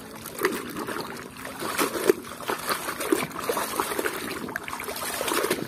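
Muddy water sloshing and splashing in repeated, irregular swishes as a plastic toy train is dunked and shaken through it by hand to wash off the mud.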